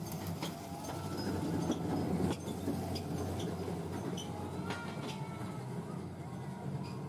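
A steady low mechanical rumble that swells about two seconds in, with scattered clicks and a few short high chirps over it.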